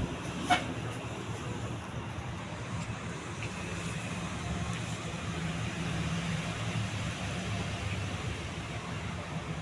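42-inch Atlantic Air / Alaska Kiev decorative ceiling fan running, a steady low motor hum with air noise. There is one light click about half a second in.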